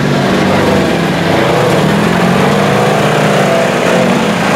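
Engine of a lifted Polaris Ranger side-by-side running under throttle as it pulls away through mud, its pitch rising and falling.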